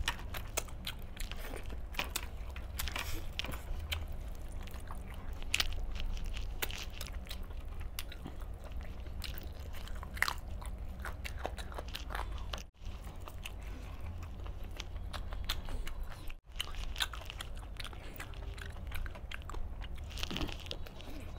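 Close-up eating sounds of a man biting and chewing chicken meat off the bone, with many short clicks and smacks. The sound cuts out briefly twice, about two-thirds of the way in.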